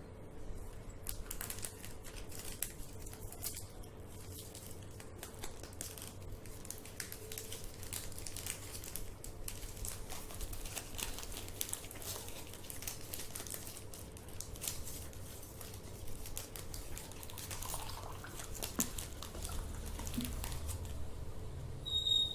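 Plastic water bottle crinkling and crackling as it is drunk from, in many small irregular clicks, with a brief louder sound near the end.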